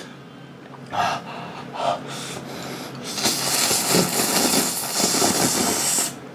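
A person slurping instant ramen noodles in one long, loud, continuous pull from about three seconds in, stopping abruptly near the end. Before it come two short breaths.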